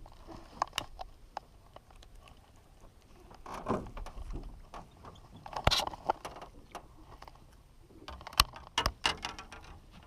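Scattered knocks, clicks and rustles of gear being handled in a fishing boat, with a cluster of sharp clicks near the end.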